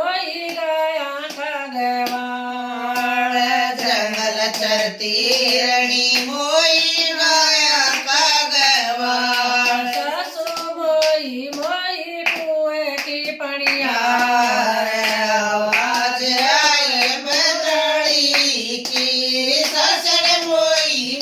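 Female voice singing a Haryanvi bhajan, a devotional folk song, with hand claps keeping time.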